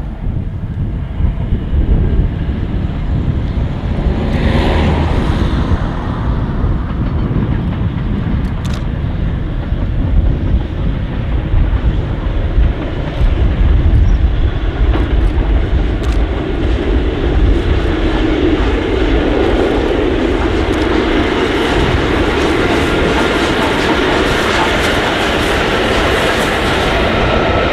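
LMS Princess Coronation class steam locomotive hauling a train of coaches past at speed: a continuous loud rush of train noise over a heavy low rumble, fuller in the second half.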